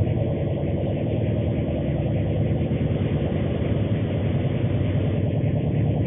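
Altered static: a steady, dense crackling hiss and rumble, weighted toward the deep end.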